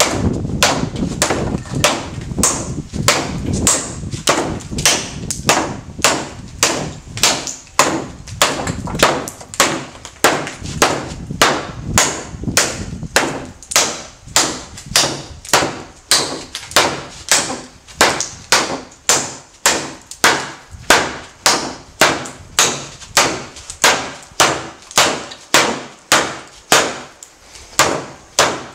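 Heavy L6 steel blade chopping into a wooden plank over and over, about two sharp chops a second, in a cutting test.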